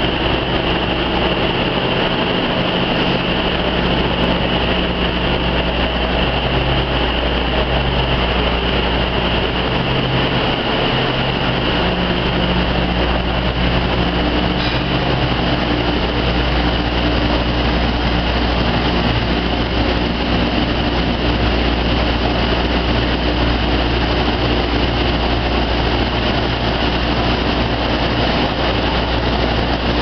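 Rubber hose extrusion and microwave vulcanization line running, a steady machine drone with a constant high whine over a low hum.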